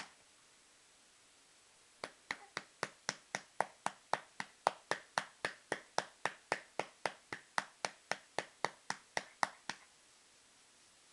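A hand patting a baby's back to bring up a burp: quick, even pats about four a second, starting after a pause of about two seconds and stopping shortly before the end.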